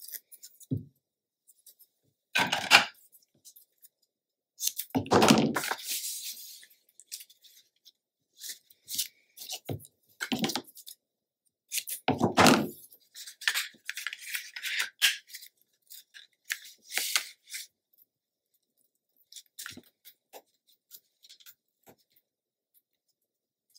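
Hands working with cardstock and adhesive while fitting a magnet closure to a page: scattered rustles, scrapes and taps, with short tearing or peeling sounds and pauses between them.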